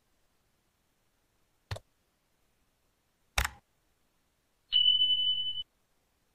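Sound effects of a 'subscribe' button animation: two mouse clicks about a second and a half apart, then a high steady notification beep lasting about a second.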